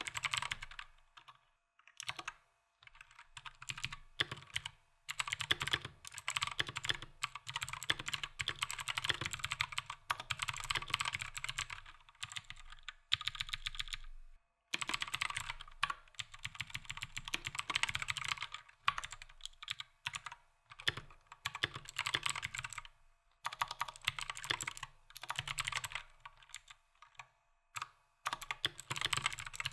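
Fast typing on a budget mechanical keyboard: dense runs of key clacks, broken by short pauses.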